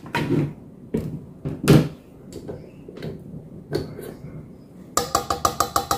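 A few separate clunks as a stand mixer's wire whisk attachment is handled and taken off. From about five seconds in comes a fast, even run of ringing metal taps: the whisk being knocked against the stainless steel mixing bowl to shake off chocolate cake batter.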